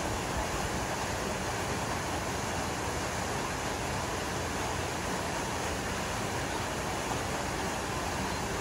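Steady, even rush of waterfalls pouring into pools, with no break.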